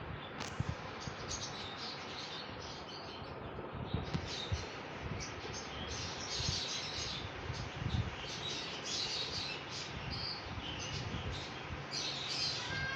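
Parrots chirping in many short, quick high calls, busier from about four seconds in, with a few soft low knocks.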